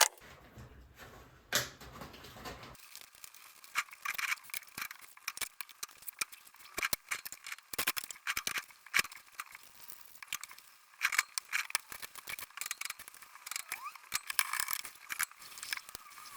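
Rapid, irregular clicks and light clattering of small hard objects.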